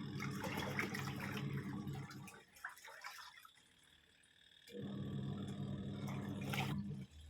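Twin-tub washing machine's wash tub motor and pulsator churning water and detergent: a steady motor hum with water sloshing, which stops about two and a half seconds in and starts again about two seconds later, stopping just before the end, the stop-start rhythm of the pulsator changing direction during the wash.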